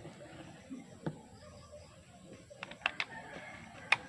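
A few small sharp plastic clicks and handling noise as the RJ45 plugs of a freshly crimped Cat5e cable are pushed into a network cable tester. There is one click about a second in, a quick cluster near three seconds, and the sharpest click just before the end.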